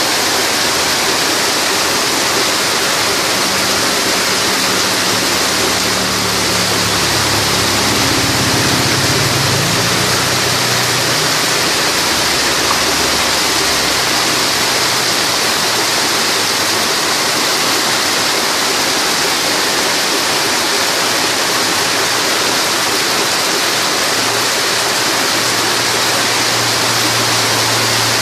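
Heavy rain pouring down in a loud, steady hiss. A low hum rises under it from about four seconds in, fades out around thirteen seconds, and returns near the end.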